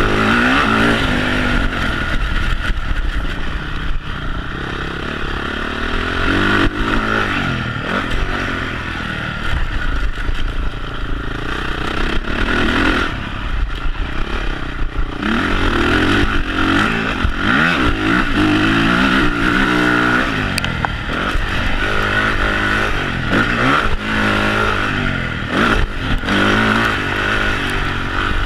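Honda CRF450 motocross bike's single-cylinder four-stroke engine with a Yoshimura twin exhaust, ridden hard on a dirt track: it revs up and drops off again and again as the rider accelerates and shuts the throttle between jumps and corners.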